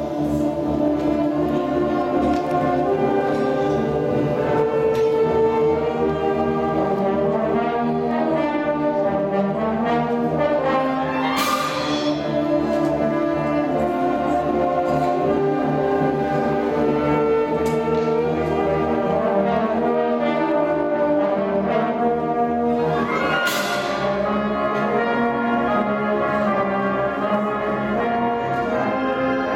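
Large school concert band playing a sustained, brass-heavy passage with woodwinds, horns and tubas together. Two crashes ring out about twelve seconds apart.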